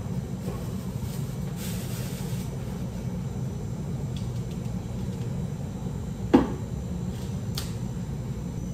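Steady low hum of café machinery, with plastic cups being handled: one sharp knock about six seconds in and a lighter click a second later.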